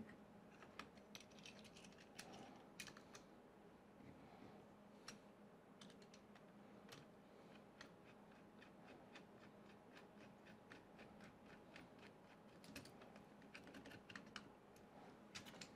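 Faint, irregular small clicks and ticks of a hand screwdriver working a small bolt into the 3D printer's aluminium frame, over quiet room tone.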